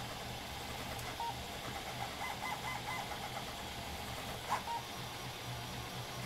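Stepper motors of a small Hypercube-style CoreXY 3D printer chirping and whining in short notes that jump in pitch as the print head darts about at very high speed (feed rate 250% of 300 mm/s), over a steady low hum. A sharp tick about a second in and another about four and a half seconds in.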